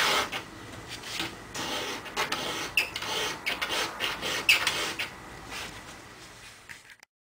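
A thin pointed metal hand tool scraping and tapping on sheet aluminum in irregular short strokes, while a new wing skin is marked out from a pattern. The sound cuts off suddenly near the end.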